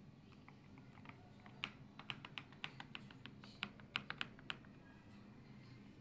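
Keys being pressed on an AULA F98 Pro mechanical keyboard with transparent polycarbonate keycaps and linear switches: about a dozen separate key clicks, a few at first, then quicker between about one and a half and four and a half seconds in, then stopping.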